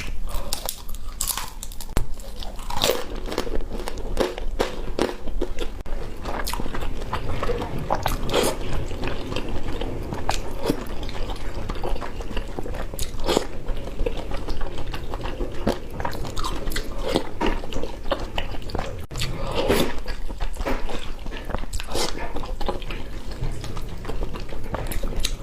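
A person eating close to the microphone: biting and chewing noodles and roasted sauced skin, with many short crunches and mouth clicks.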